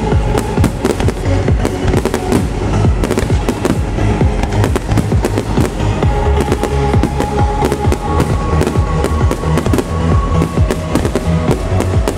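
Fireworks display: a dense, rapid run of bangs and crackles from aerial shells bursting into glittering stars, over trance music played through the show's loudspeakers.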